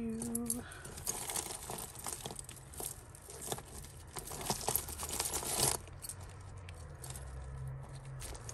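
Tangled costume jewellery, metal chains and beads, clinking and rattling as fingers pick a necklace loose from the heap. The clinking is busiest for the first five or six seconds, then softer.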